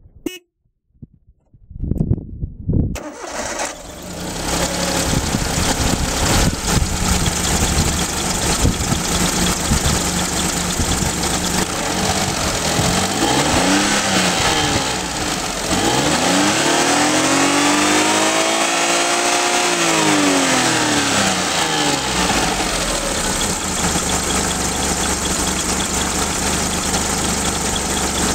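1995 Suzuki Alto Works HA11S's carbureted, naturally aspirated three-cylinder engine is started and catches about three seconds in, then runs at idle. Around the middle it is revved once briefly and then once for longer, the pitch rising and falling back over about six seconds, before it settles to a steady idle.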